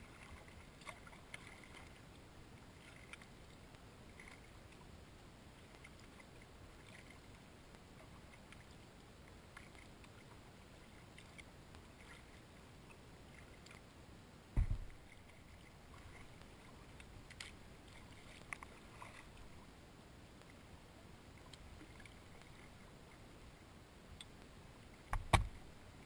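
Kayak paddling on calm water: faint drips and light splashes from the paddle strokes over a quiet background. Two dull thumps stand out, one about halfway through and a louder one near the end.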